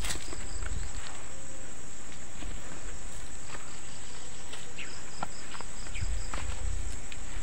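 Insects buzzing steadily at a high pitch, with two short runs of quick, evenly spaced chirps, one near the start and one about five seconds in. Scattered light ticks and rustles sound underneath.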